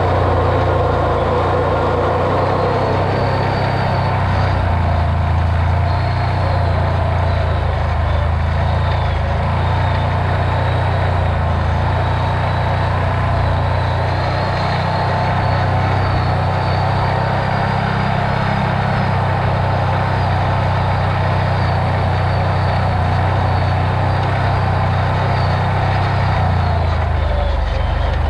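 Off-road vehicle's engine running steadily while driving, a low, even drone that hardly changes.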